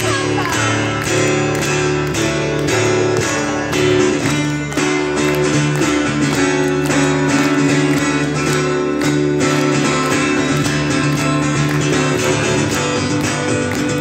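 Acoustic guitar strummed in a steady rhythm, about three strokes a second, over sustained low notes, in an instrumental passage without singing.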